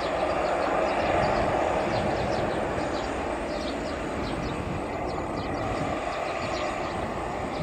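Bombardier CRJ1000 airliner's twin rear-mounted turbofans at takeoff power as it climbs away: a steady rushing jet roar, with short high chirps over it.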